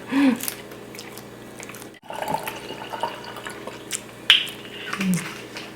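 Close-up eating sounds: wet chewing and lip smacks, with scattered sharp clicks.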